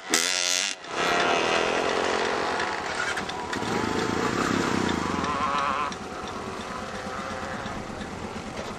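Quad bike engines running and revving, loud for most of the first six seconds, then dropping to a quieter, steady sound of running engines.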